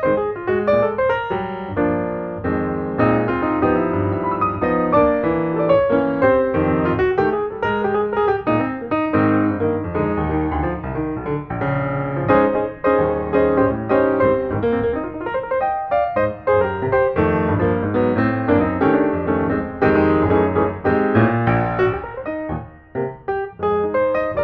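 Background piano music with many quick notes.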